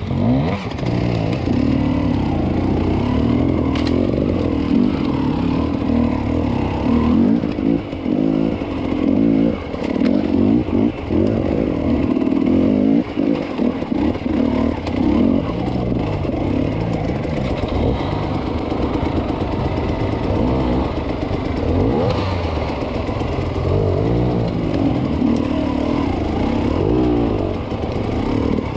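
Enduro dirt bike engine worked with short blips of throttle at low speed over rough ground, its note rising and falling over and over, with clatter from the bike over rocks.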